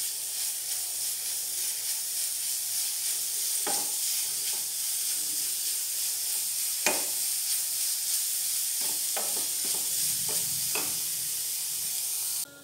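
Grated beetroot sizzling as it fries in a nonstick pan, with a wooden spatula stirring and now and then scraping or tapping the pan in a few sharp clicks. The beetroot is being fried until its raw smell is gone. The sound stops suddenly just before the end.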